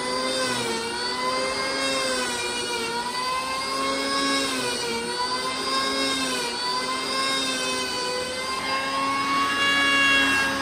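Corded electric hand planer running as it shaves the surface of a solid wood slab, a steady high motor whine whose pitch sags and recovers every second or two as the blades bite into the wood.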